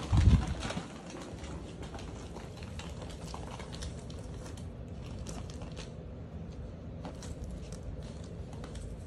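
Ferrets scrambling through a clear ribbed plastic play tube: irregular crinkling and scratching on the plastic, busier in the first half and sparser later. A brief low thump right at the start.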